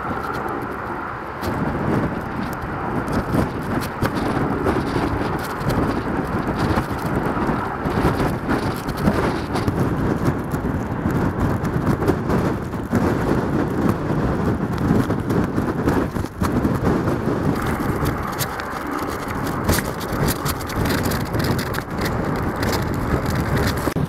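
Storm wind buffeting the microphone in irregular gusts, over the steady rumble of heavy breaking surf.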